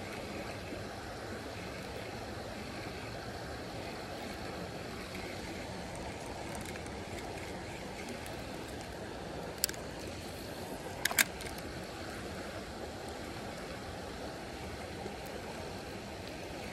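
Creek water rushing steadily, with a sharp click a little under ten seconds in and a quick double click about eleven seconds in.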